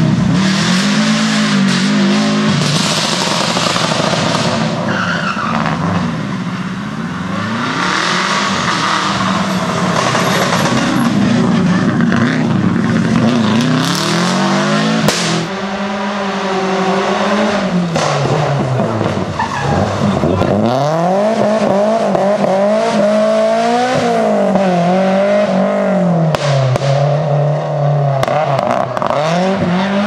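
Rally cars passing at speed one after another, engines revving hard and dropping in pitch at each gear change or lift, with tyre noise from the road surface.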